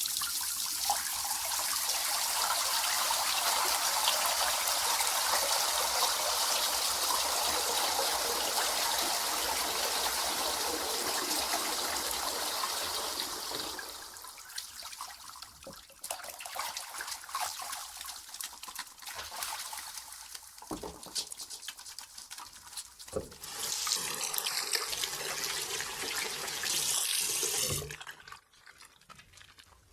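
Hand washing at a sink: a water tap runs steadily for about thirteen seconds, then stops, leaving quieter, irregular wet rubbing and clicks; the tap runs again for about four seconds and shuts off near the end.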